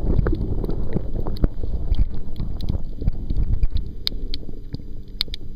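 Muffled underwater water noise against a submerged camera housing: a low rumble with scattered sharp clicks and ticks, busy in the first half and thinning to a few sparse clicks toward the end.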